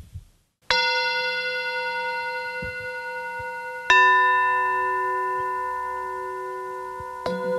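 Metal singing bowls struck three times: about a second in, just before four seconds in, and near the end. Each strike rings on with several steady overtones and fades slowly. The second strike is the loudest and adds a lower note under the first.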